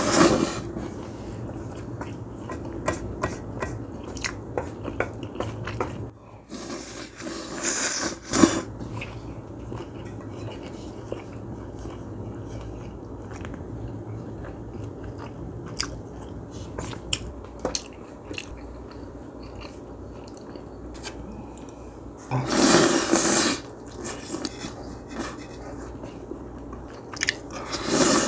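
Close-miked eating of chewy noodles. There are wet slurps, loud at the start, around eight seconds, around twenty-three seconds and at the very end, and between them steady chewing with many small clicks.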